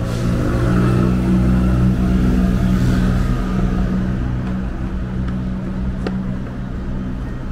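A motor vehicle's engine running close by as a steady low hum, swelling a little in the first few seconds. A single sharp click about six seconds in.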